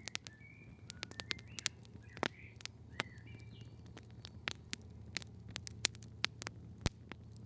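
Faint forest ambience: short, high bird chirps every second or so, over many sharp little clicks and crackles scattered throughout and a low steady hum.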